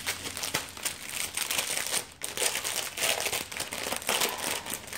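Plastic packaging of a diamond painting kit crinkling and rustling as it is handled, with a brief pause about two seconds in.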